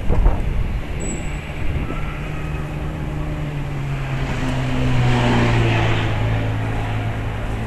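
Small boat's engine running slowly, a steady low hum that grows a little louder about halfway through. A brief thump right at the start.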